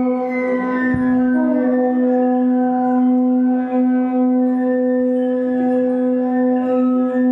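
Instrumental folk music over a loud, unbroken drone, with a melody line moving above it.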